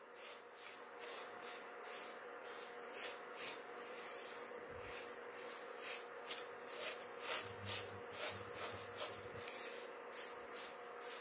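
Silicone spatula stirring and scraping vermicelli, coconut and nuts roasting in a nonstick pan: faint, irregular rustling strokes, a few a second, over a steady faint hum.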